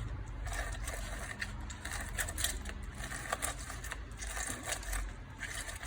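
A lemon being squeezed by hand for its juice: faint crushing and scraping with a few light clicks.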